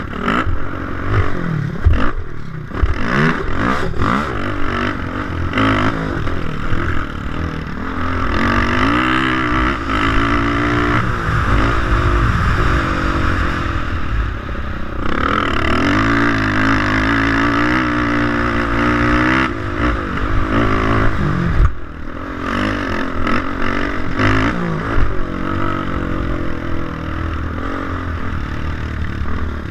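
Honda 450R four-stroke single-cylinder engine being ridden hard on a dirt motocross track, revving up and falling off again and again through the corners and straights. Heard from a helmet camera, with wind rush and clattering from the bumps.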